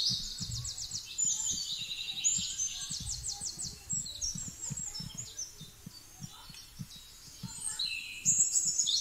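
Several small songbirds singing together, with rapid high trills and chirps, over soft low thuds.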